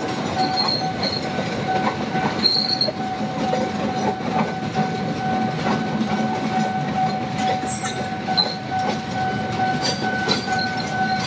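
Kertajaya passenger train's coaches rolling past close by: a steady rumble of wheels on rail with scattered sharp clacks, and a steady high tone held throughout.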